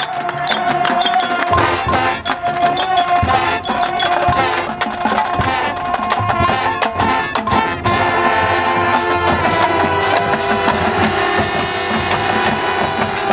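Brass and percussion ensemble playing loudly, brass chords over a busy pattern of drum hits, stopping sharply right at the end.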